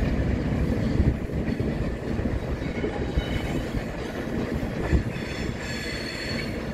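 Class 37 diesel locomotive and its train pulling away with a steady heavy engine rumble, and a knock or two from the wheels on the track. From about halfway in, the wheels begin squealing in high tones that grow stronger near the end.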